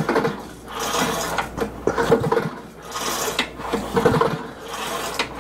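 Recoil pull-starter on a Briggs & Stratton 8 hp I/C engine being pulled out and let rewind repeatedly, about once a second, to test whether it binds. Each stroke is a rasping whir of cord and pulley, with the starter rubbing a little on the end of its cover.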